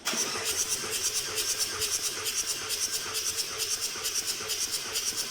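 Ford Transit 2.0 TDCi F3FA diesel engine being turned over on its starter motor without firing, a steady rhythmic cranking of about five pulses a second, as the fourth cylinder's compression is measured.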